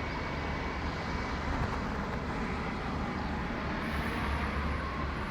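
Airbus A320-232's IAE V2500 turbofan engines running: a steady rumble with a faint high whine.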